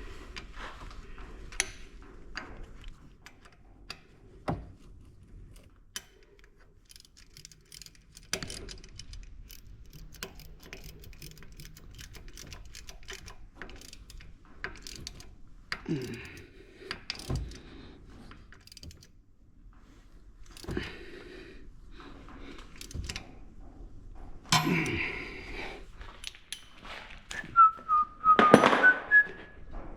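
Scattered metallic clinks and knocks of hand tools and bolts being handled, with a short, clattery flurry near the end. Over that flurry someone whistles a brief wavering note.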